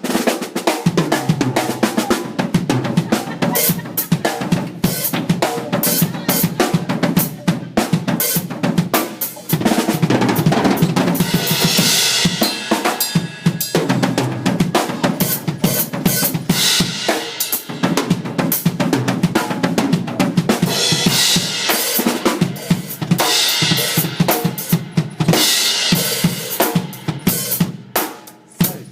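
Drum kit played with sticks: a busy run of snare and bass drum strokes, with cymbal crashes ringing out several times.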